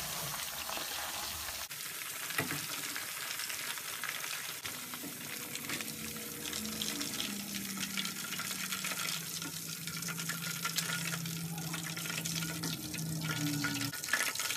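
Marinated chicken pieces deep-frying in hot oil in a pan, a steady crackling sizzle, with a spoon stirring and lifting the pieces through the oil.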